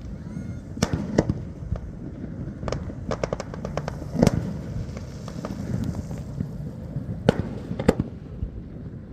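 Fireworks display: a string of sharp bangs from bursting shells, with a quick run of crackling pops about three seconds in, the loudest bang just after four seconds, and two more bangs near the end, over a continuous low rumble.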